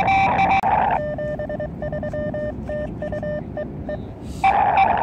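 Morse code (CW) from an Elecraft KX2 transceiver's speaker on the 40 m band. A steady higher tone runs for the first second, then a lower tone keys on and off in dots and dashes. A louder, noisier burst of the higher tone comes near the end.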